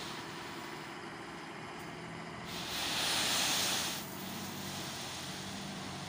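Crushed-stone dust sliding out of a raised dump truck's tipper body onto the pile: a steady hissing rush that swells for about a second and a half in the middle, over the faint steady hum of the truck's engine running.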